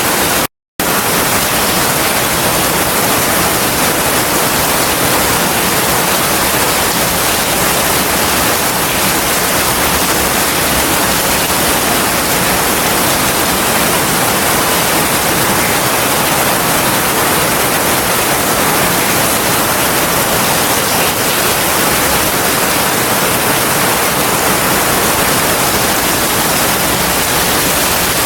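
Heavy rain falling steadily as a dense, even hiss, with no thunder. It cuts out completely for a split second about half a second in.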